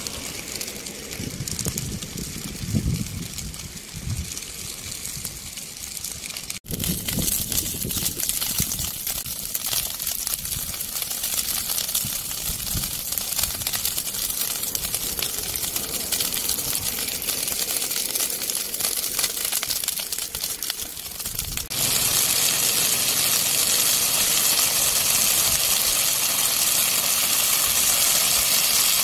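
Dry grass and brush burning in a wildfire: a steady crackling hiss that changes abruptly twice, about seven seconds in and again after about twenty seconds, and is loudest in the last part.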